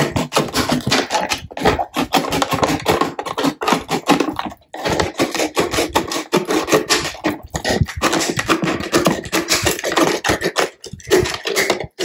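Box cutter blade sawing around the neck of a clear plastic coffee creamer bottle, a fast, irregular scratchy crackle of the blade cutting through the plastic, with brief pauses about four and a half seconds in and near the end.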